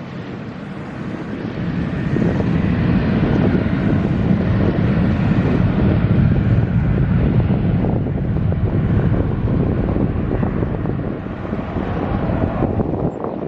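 Jet airliner engines rumbling as a plane passes, swelling over the first couple of seconds and easing near the end, with wind buffeting the microphone.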